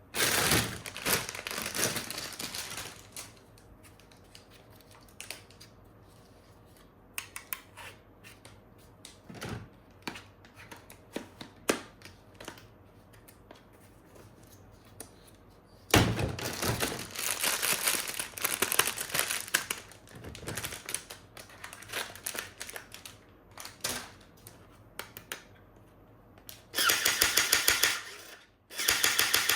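Plastic toy parts and packaging being handled: crinkling in two longer stretches, scattered clicks and knocks, and a fast even rattle of plastic near the end.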